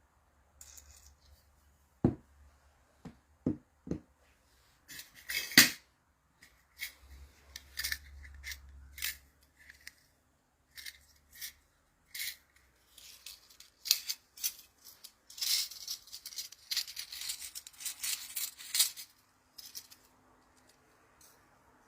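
Clicks, knocks and scrapes of small metal parts and tools being handled during hands-on work on a small-engine carburetor. A few separate sharp knocks come in the first few seconds, then a busier run of quick scraping clicks comes later on.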